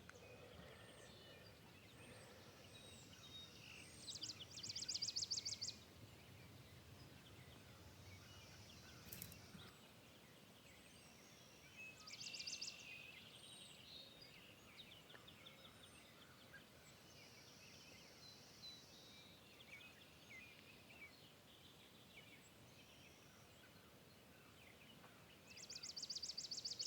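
Faint birdsong: scattered high chirps, with a rapid high trill three times, about four seconds in, around twelve seconds and near the end.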